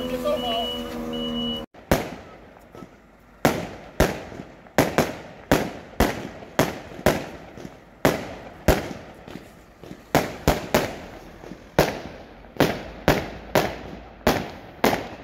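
Fire engine horns sounding together in a steady chord, cut off abruptly after about a second and a half. Then a rapid series of fireworks bangs overhead, roughly two a second at uneven spacing, each a sharp crack with a short echoing tail.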